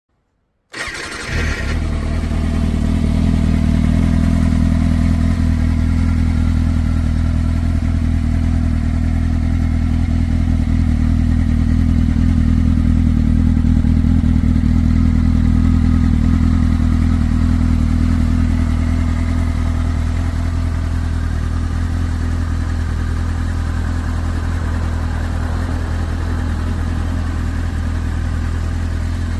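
Kawasaki ZX-6R's inline-four engine starting about a second in and then idling steadily, a little louder through the middle and easing slightly near the end.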